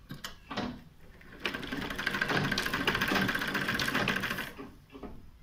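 Sewing machine stitching through folded fabric: a run of rapid, even needle strokes that starts about a second and a half in and stops after about three seconds. A few light clicks come before it.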